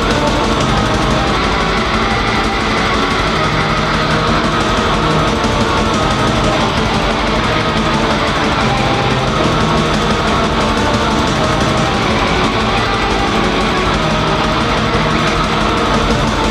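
Raw black metal music in the chainsaw metal style: a dense, unbroken wall of distorted sound at a constant loud level.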